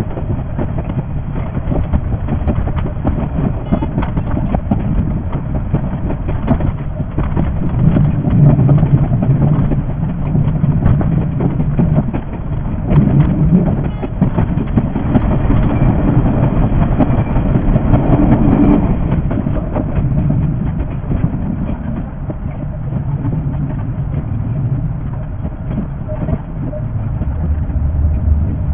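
A JR 381-series limited express train running, heard from the cab and sped up six times: a dense, rapid clatter of wheels over the rails above a steady low rumble. The rumble swells in the middle and eases off toward the end.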